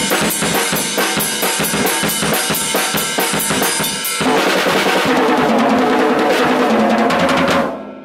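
Drum kit played with sticks: a fast, even beat of sharp strikes, then about four seconds in a dense roll across the drums with washing cymbals. It stops sharply near the end, and the drums and cymbals are left ringing out.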